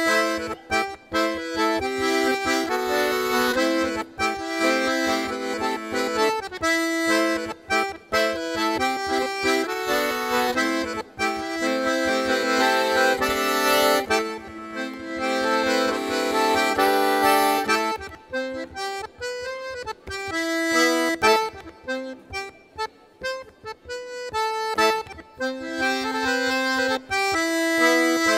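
Traditional folk dance music led by an accordion playing a flowing melody. The music thins out and turns choppier for a few seconds past the middle, then fills out again.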